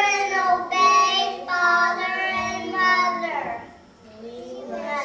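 Young children singing a song, holding long notes between short breaths, with a brief pause between phrases near the end.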